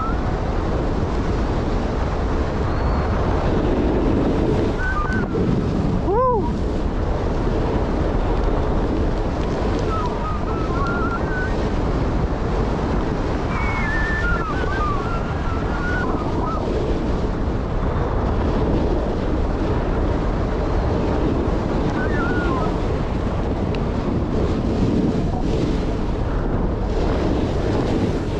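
Wind rushing over the microphone on a snowboard run through fresh powder, with the board's steady hiss through the snow. A few faint, short squeaky sounds come and go, and a brief falling swoop comes about six seconds in.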